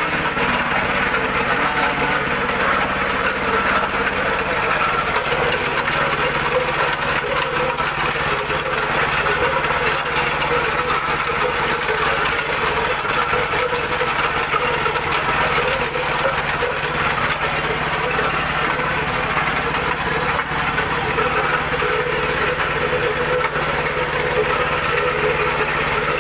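A small engine running steadily at a constant speed, a continuous mechanical drone with no change in pace.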